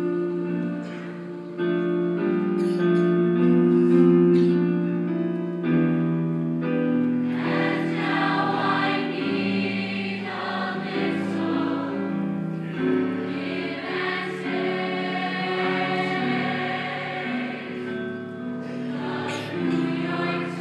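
Mixed-voice show choir singing in harmony, holding chords that change every second or two, heard from the audience in a reverberant auditorium.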